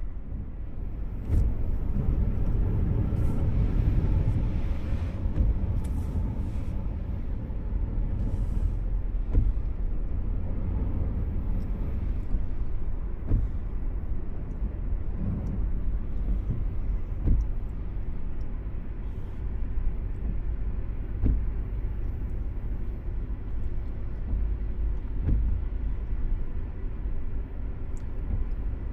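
Steady low rumble of a vehicle on the move, with scattered light taps throughout.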